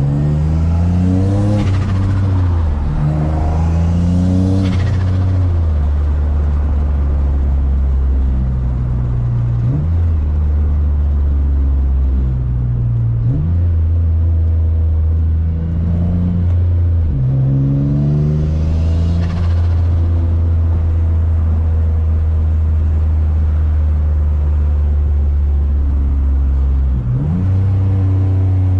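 Single-turbo Nissan G35's V6 engine accelerating in repeated pulls: the note climbs with each pull and drops back at each gear change, with a short hiss at several of the shifts. After about 19 seconds it settles into a long steady cruise, then another pull starts near the end.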